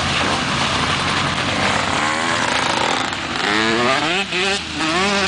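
Dodge W200 Power Wagon pickup driving through deep mud and water: its engine runs under load over the steady splash and churn of the tyres. In the second half the engine note rises and falls quickly as the throttle is worked.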